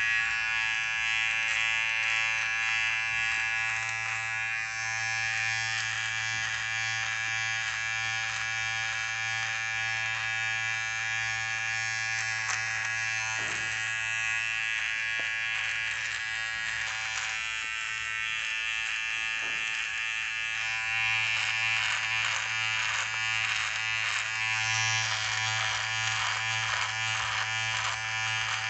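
Rechargeable electric beard trimmer running with a steady buzz as it cuts beard stubble.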